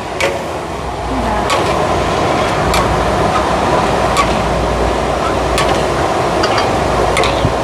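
A metal ladle scooping powder from a plastic sack into a plastic bowl, giving a few light clicks about a second or so apart, over a steady rushing noise.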